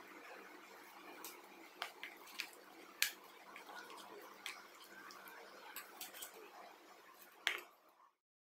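Steel spoon stirring a thick ground paste in a bowl: irregular light clicks and taps of the spoon against the bowl, with a sharper click about three seconds in and another near the end, then the sound cuts off.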